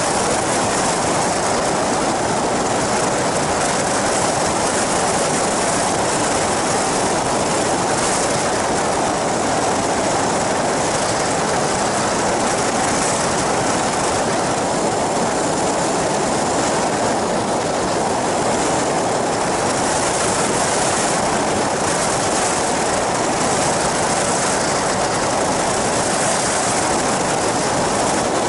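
Steady rush of wind and engine noise from an ultralight flying boat, an inflatable-hull trike with a caged pusher propeller, in level flight, heard from a camera mounted on the craft with wind on the microphone.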